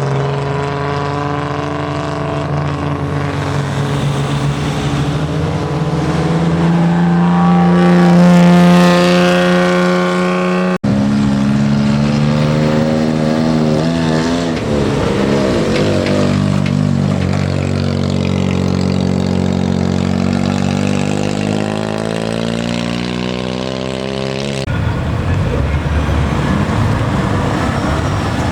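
Car engines running and revving as cars drive in one after another. The pitch climbs to a peak about a third of the way through and cuts out briefly. Another engine's pitch rises and falls, and the sound changes abruptly near the end.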